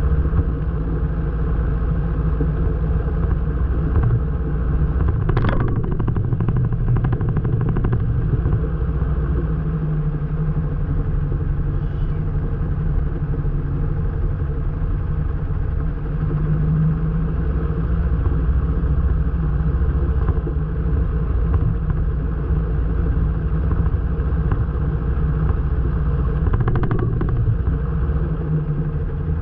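Light airplane's piston engine running steadily, with a few brief clicks about five to seven seconds in and again near the end.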